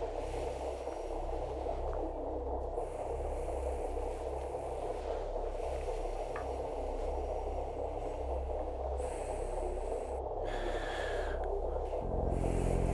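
A man breathing slowly and heavily through the nose, each breath an airy hiss lasting a few seconds, over a steady low room drone. Near the end, a dark droning music enters.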